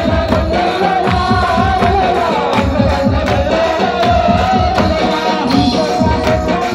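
Devotional song: a singing voice carrying a wavering melody over a steady, fast hand-drum beat.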